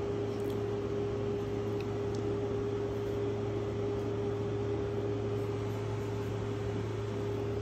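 Window air conditioner running: a steady hum with a low drone and a higher steady tone over an even rush of air.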